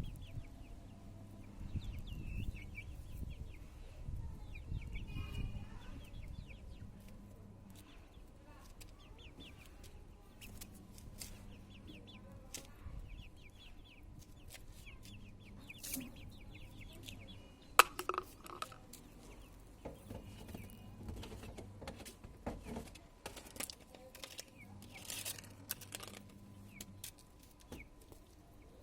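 Chickens clucking and peeping in quick short calls, with scattered sharp ticks and one loud click about eighteen seconds in, over a faint steady low hum.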